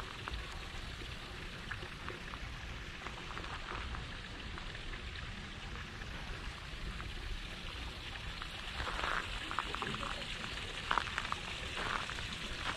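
Outdoor ambience: a steady hiss with faint, scattered voices of people nearby, which become a little busier about nine seconds in.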